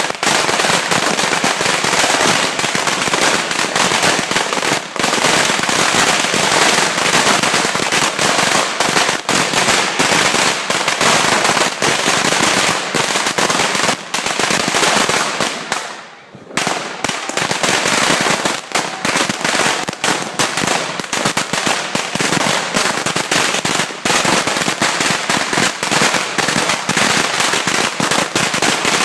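A 100,000-shot firecracker string going off in a continuous, rapid rattle of cracks, briefly faltering about sixteen seconds in, then crackling on.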